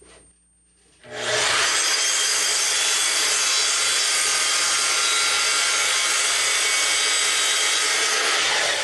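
Sliding compound miter saw starting up about a second in and crosscutting through a gang-stacked pile of half-inch construction-grade plywood strips, a loud, steady cut. Near the end the sound begins to fall away as the cut finishes.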